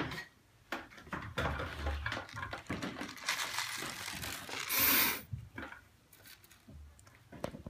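A small box of Nerds candy being opened and handled: crinkling, tearing and small clicks, with a louder rushing rattle of the tiny candies from about three to five seconds in.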